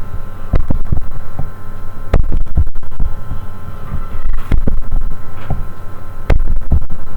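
Computer keyboard and mouse clicks picked up close to the desk microphone, irregular and several a second, some landing as dull thuds, over a steady electrical hum.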